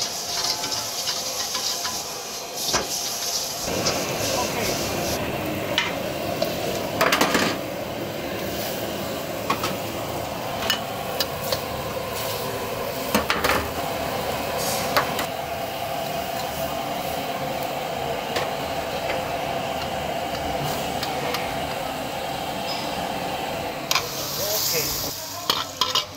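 Cooking in a wok over a gas burner: frying noise and bubbling egg gravy for hor fun, with the long metal wok spatula scraping and knocking against the wok now and then.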